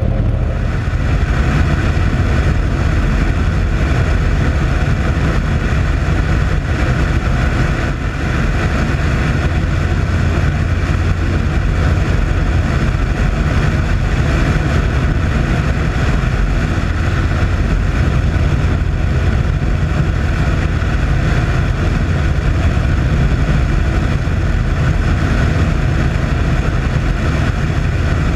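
Douglas C-47's twin radial engines and propellers droning steadily in flight, heard from outside on the wing with wind rushing past.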